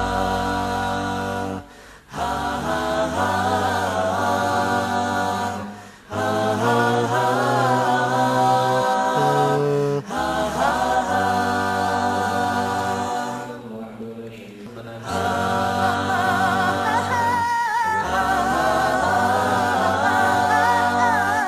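A cappella vocal music: a group of voices singing a song in phrases over a held bass line, with short breaks between phrases and a quieter stretch a little past the middle.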